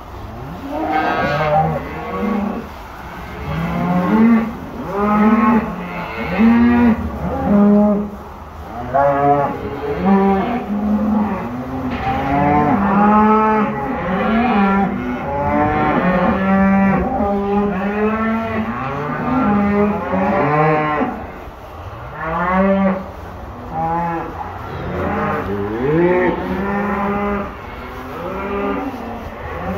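A herd of beef cows and calves mooing and bawling, many loud calls overlapping one another without a break, some sliding up and down in pitch.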